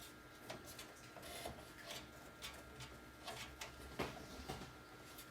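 Screwdriver driving a screw into a motherboard standoff: faint, irregular small clicks and ticks of metal on metal as the screw is turned in.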